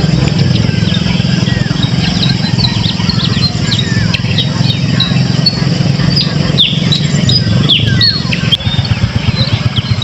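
Many small birds chirping with short, quick, falling calls, thickest a little past the middle, over a steady low rumble.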